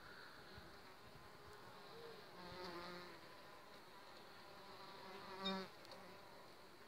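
A wild bee buzzing as it flies close past, twice: briefly about two and a half seconds in, then louder and shorter about five and a half seconds in.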